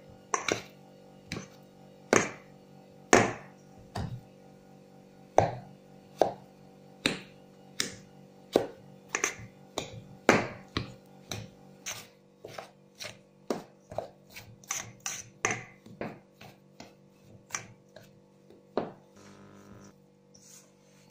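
Knife chopping margarine into flour in a stainless steel bowl, its blade knocking sharply on the bowl. The knocks come about once a second at first, quicken to about two a second from about halfway, and stop near the end.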